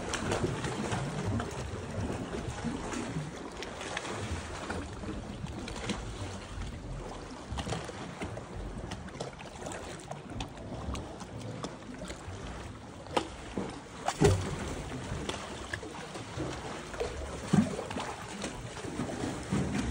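Water sloshing and lapping around a kayak as it is paddled, with a few sharper splashes or knocks about two-thirds of the way through.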